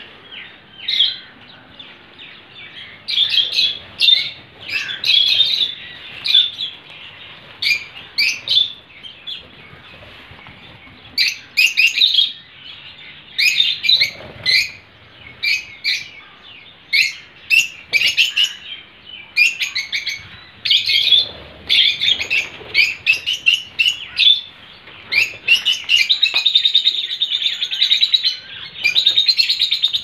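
Birds chirping: short, high chirps coming in quick clusters, with a lull about a third of the way in and a longer trill near the end.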